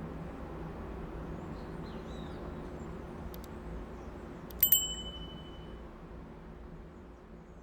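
Steady low hum of city traffic heard from above the street. About four and a half seconds in comes a single bright metallic ding that rings for about a second, and the ambience then slowly fades down.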